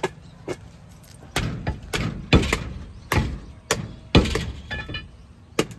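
A butcher's cleaver chopping mutton on a wooden block, about nine heavy chops at uneven intervals, cutting the meat into small pieces.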